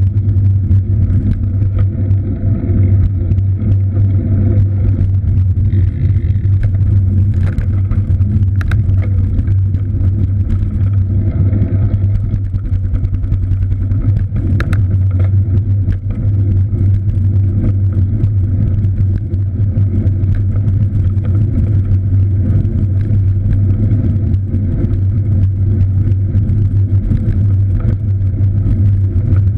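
Steady low rumble from riding a cross bike along a road, with no clear changes in level.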